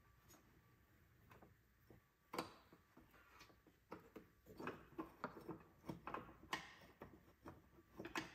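Near silence broken by faint, irregular metallic clicks and ticks of a wrench working the 10 mm battery hold-down bolts. There is one sharper click a couple of seconds in, and the clicks come more often through the second half.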